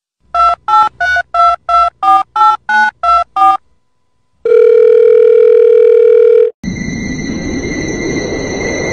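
Telephone keypad tones: about eleven short two-note beeps dialed in quick succession, like a phone number being keyed in, followed after a short pause by a steady telephone tone for about two seconds. From about two-thirds of the way in there is a steady hiss with high, even whines.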